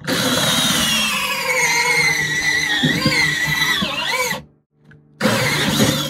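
Cordless drill driving a 3-inch hole saw through a plastic sump basin lid. It runs for about four seconds with its pitch slowly dropping as the saw bites, stops, then gives a second short burst near the end.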